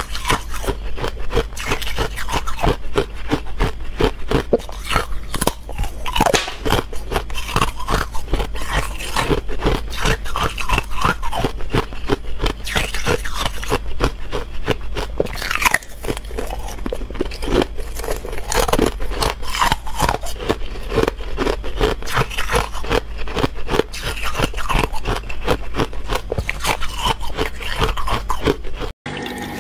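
Buckwheat ice being bitten and chewed close to the microphone: dense, continuous crunching and cracking. The sound cuts off abruptly near the end.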